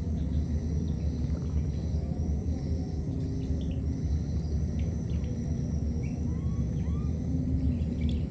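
Outdoor ambience: a steady low rumble with a continuous high insect drone over it. A few faint short bird calls come through, two small rising ones near the end.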